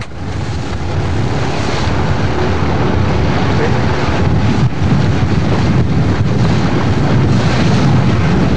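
Steady, loud rumble of a boat under way at sea, with wind and wave noise, swelling up over the first second.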